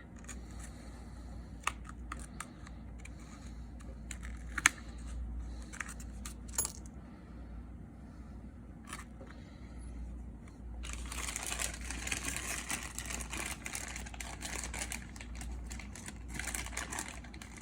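Metal opening tool clicking and scraping against the edges of an iPhone 6s Plus as the screen is pried from the frame: a few sharp separate metallic clicks, then a longer stretch of steady scraping in the second half.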